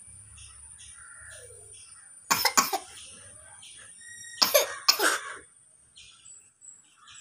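A girl coughing in two short fits, about two seconds in and again about four and a half seconds in, from the heat of a raw green chilli she has just bitten into. Small birds chirp faintly and repeatedly in the background.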